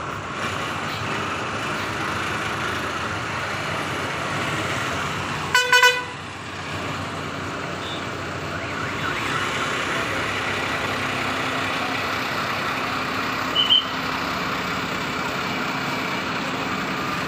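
Bus stand traffic: bus engines running with a steady road rumble. About five and a half seconds in, a vehicle horn toots loudly for about half a second, and a brief high beep sounds later on.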